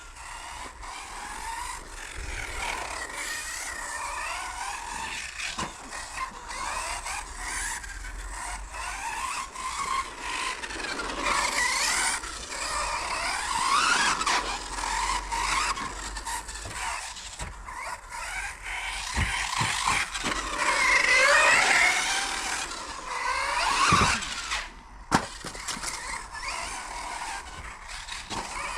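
Hobao Hyper 10 TT 2.0 electric RC truggy driving on a carpet track. Its 4250 kV brushless motor on 2S whines, rising and falling in pitch with the throttle, over the scrub of the tyres on the carpet. There are a few sharp knocks in the second half.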